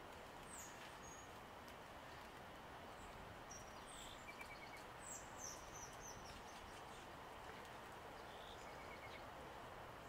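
Faint songbird chirps and calls, scattered high notes with a small cluster around the middle and two short quick trills, over a steady hiss of outdoor background noise.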